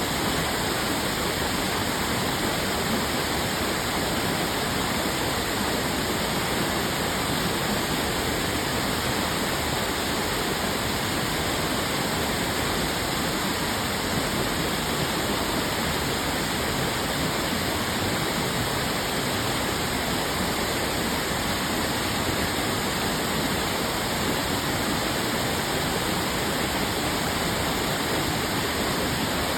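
Otome no Taki waterfall: water falling and splashing in a steady, unbroken rush.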